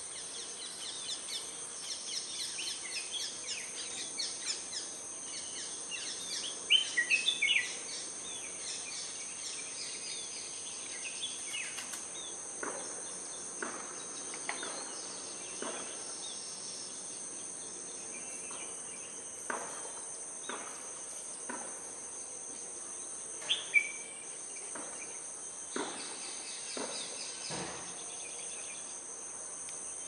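Steady high-pitched drone of insects, with scattered bird chirps; a quick flurry of loud chirps about a quarter of the way in and two more near the three-quarter mark, plus occasional sharp clicks.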